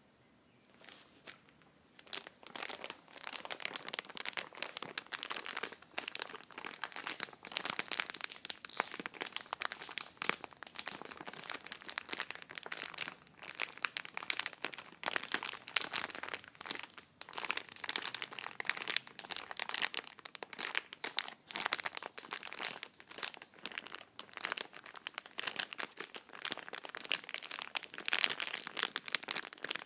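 Packaging crinkled and scrunched by hand. After a brief rustle about a second in, dense, irregular crinkling starts about two seconds in and goes on without pause.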